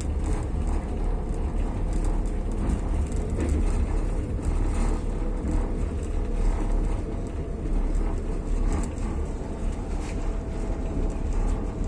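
Passenger train carriage rolling along the rails at speed: a steady rumble of wheels and running gear, with a faint steady whine throughout.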